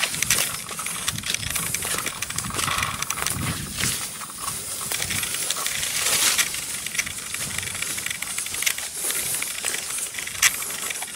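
A hiker's footsteps crunching through dry leaf litter and undergrowth, with irregular crackles and the rustle of leaves and twigs brushing past, and one sharper snap near the end.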